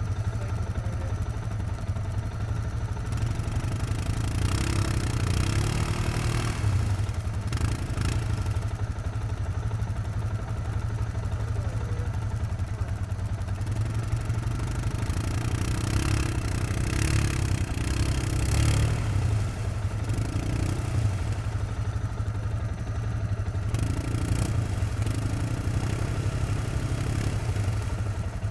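Yamaha Grizzly ATV engine running steadily with several rising revs in bursts, each lasting a few seconds, with short hissy noise alongside some of them.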